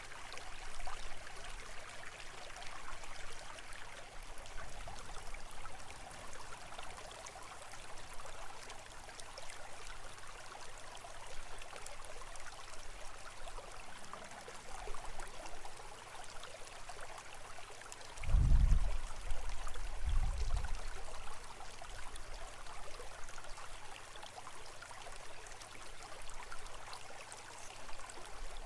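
Steady trickling and rushing of a flowing stream, with two low thumps about two thirds of the way through.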